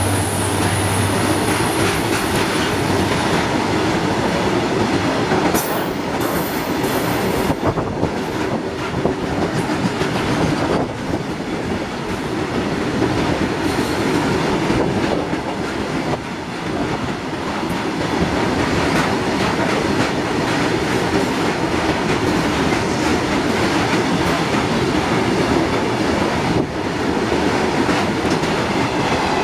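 Freight train of BTPN bogie tank wagons rolling past close by: a steady rumble of steel wheels on the rails with clicks as the wheels run over the rail joints. A brief high wheel squeal comes about six seconds in.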